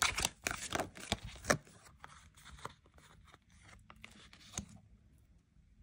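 Tarot cards being handled and shuffled: a quick run of snaps and rustles for about a second and a half, then a few scattered single clicks.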